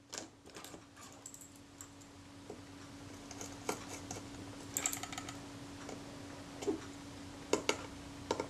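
Light, scattered clicks and taps of small metal camera parts and a screw being handled and seated on a Kodak Retina IIIC's body, about half a dozen in all.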